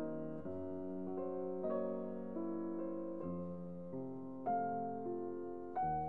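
Background piano music: single notes and chords struck about once a second and left to ring.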